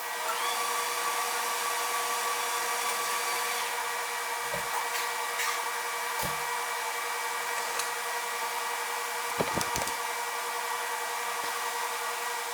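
TIG welding arc running steadily: an even hiss with a steady buzzing tone, and a few soft knocks.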